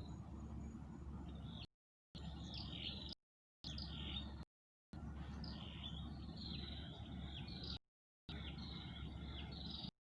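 Small birds chirping in short repeated calls over a steady low background rumble. The sound cuts off abruptly to dead silence three times and resumes.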